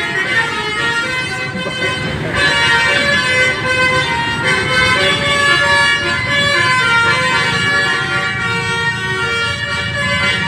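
A bus's telolet horn, a set of multi-tone air horns, playing a tune of held notes that change every second or two, with the bus engine running underneath.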